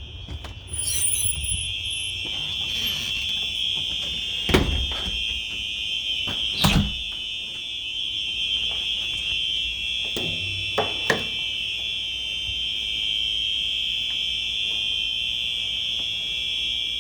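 Two Simplex 4903-9236 fire alarms sounding together, a steady unbroken high tone with a creepy quality. It grows louder about a second in, and a few sharp knocks come through over it.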